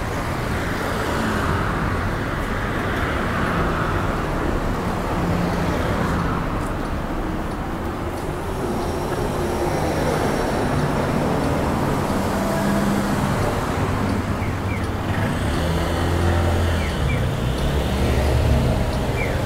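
Road traffic on a city street: cars and vans driving past with a steady engine and tyre noise. A few short high chirps sound near the end.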